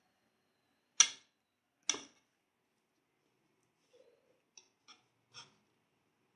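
Handling noise from a phone as it is picked up and turned: two sharp knocks about a second apart, then a few light clicks near the end.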